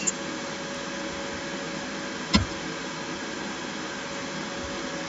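Steady background hiss of the recording with a faint steady hum, broken once by a single short click about two and a half seconds in.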